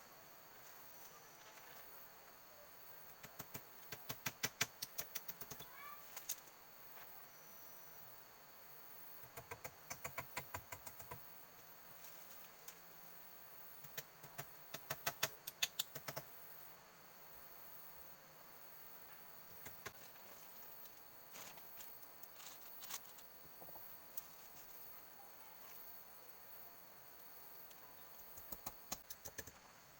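Runs of quick, sharp knocks, about ten in each run, come four times over a steady high-pitched insect drone in the forest. A few short bird chirps sound between them.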